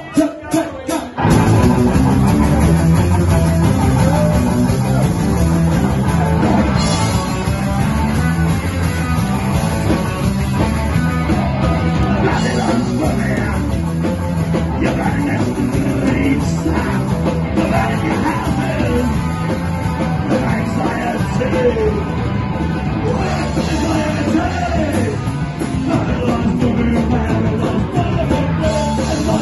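Live punk rock band playing loud: distorted electric guitar, bass guitar and a drum kit, with a man singing. A few sharp hits open it, and the full band comes in just over a second in.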